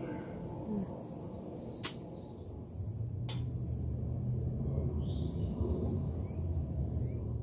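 Outdoor background with a low steady hum coming in about three seconds in, two sharp clicks just before it, and a few faint bird chirps.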